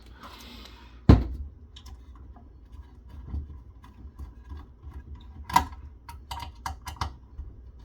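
Small clicks and taps of hand tools and metal parts being handled during a teardown, with a sharp knock about a second in and a quick run of clicks between five and seven seconds in.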